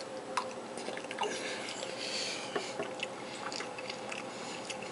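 A person chewing a mouthful of mashed potatoes and stuffing, quiet mouth sounds with a few faint clicks.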